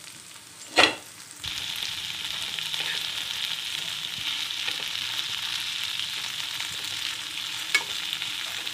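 Chopped okra sizzling in a non-stick kadai as a spatula stirs it. A sharp knock about a second in; the sizzle starts suddenly about half a second later and then holds steady, with a lighter tap near the end.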